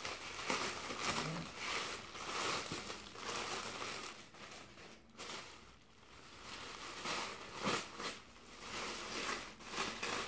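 White plastic wrapping crinkling and rustling in irregular bursts as it is handled and pulled open, with a quieter lull about five to six seconds in.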